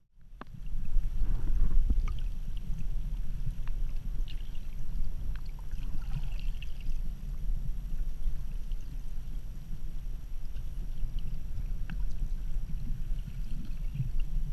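Muffled low rumble of sea water moving around a GoPro's waterproof housing held just under the surface, with scattered faint clicks. The sound cuts in after a brief dropout at the very start.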